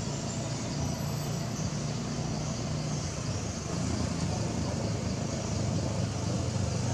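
Steady low rumble of motor traffic with a faint engine hum, a little louder from about four seconds in.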